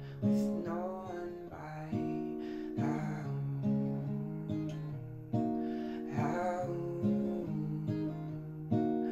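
Acoustic guitar strummed in a slow, steady pattern, a new chord struck about once a second and left ringing.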